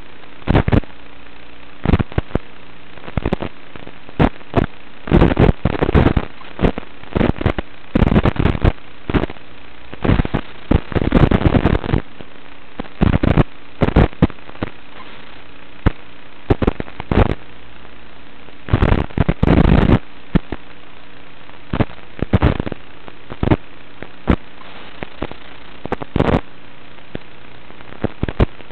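Analog FPV video-receiver audio: a steady low hum broken again and again by irregular bursts of loud static crackle, the sign of the radio link breaking up as the quadcopter flies among trees.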